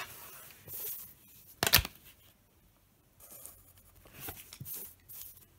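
Pencil drawing lines along a plastic ruler on paper: several short scratchy strokes, with one sharp knock about a second and a half in.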